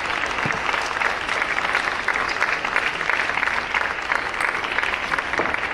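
Spectators applauding a won point in a table tennis match: steady, dense clapping.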